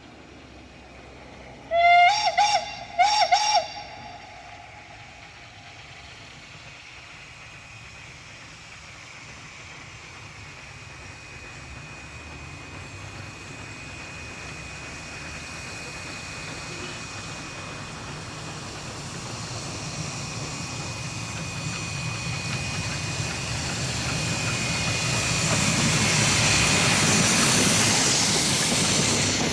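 Steam locomotive ΔΚ8.001's whistle sounds two short blasts about a second apart, near the start. Then the rack-railway steam locomotive's running noise grows steadily louder as it approaches, with a thin steady whine, and it is loudest as it passes close by near the end.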